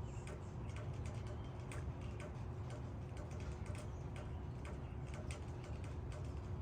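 Raindrops striking leaves in sharp, irregular ticks, several a second, over a steady low rumble.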